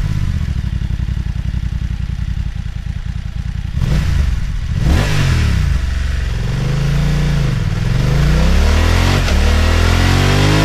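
BMW F 900 XR's 895 cc parallel-twin engine idling with a steady pulsing beat for about four seconds, then revved repeatedly, the pitch climbing and falling several times.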